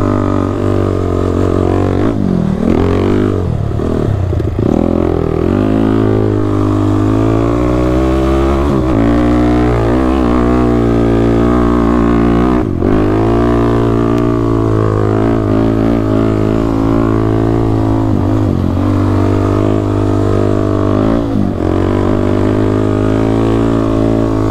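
Sport quad ATV engine running hard in sand, its revs dipping and climbing again several times as the throttle is rolled off and back on.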